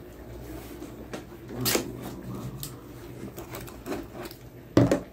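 Cardboard shipping box being cut open with a blade: short scrapes and clicks as the blade works along the taped edge, with a scratchy rasp about two seconds in. A loud thump comes near the end.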